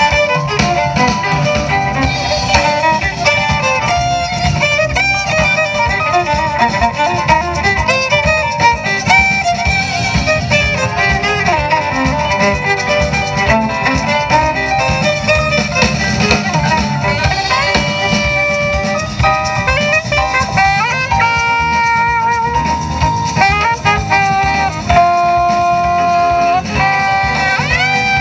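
Live jazz ensemble playing, with violin and saxophone melody over electric bass guitar, drum kit and keyboard. Busy runs of notes give way in the second half to long held notes that slide up into pitch.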